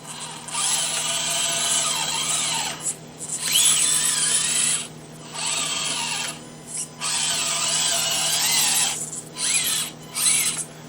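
Axial SCX24 Deadbolt 1/24-scale RC crawler's small brushed electric motor and geared drivetrain whirring in about six throttle bursts of a second or two each, the whine rising and falling in pitch as the throttle is squeezed and released.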